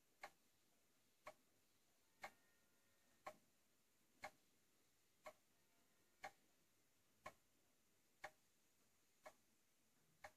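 Pendulum clock's anchor escapement ticking quietly, one beat about every second, with tick and tock very slightly uneven in spacing.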